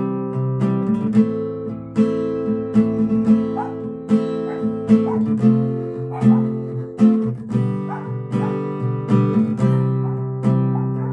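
Acoustic guitar played with a capo, chords strummed and picked in a steady rhythm, each chord ringing on into the next.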